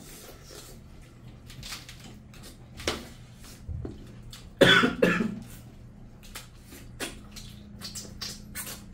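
A loud cough in two quick bursts about halfway through, over scattered soft clicks and smacks of people eating rice and curry by hand from steel plates.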